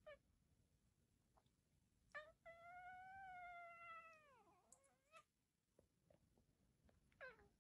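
Domestic cat yawning aloud: a faint, drawn-out meow-like call held on one note that falls away at the end. A short chirp comes just before it, and another brief call near the end.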